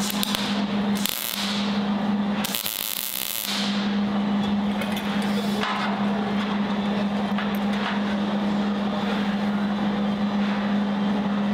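MIG welder running a steady buzzing arc along a steel car frame rail, filling in a pitted frame. The buzz breaks off briefly about a second in and again for about a second at two and a half seconds in, where short hiss-like bursts come through.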